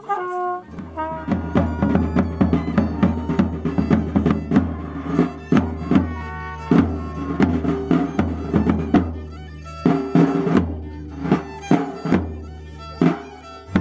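Hira Gasy band playing: a large double-headed bass drum and a smaller drum beaten in a quick, steady rhythm, with a violin playing a tune over them. A few brass notes from a trumpet are heard at the very start.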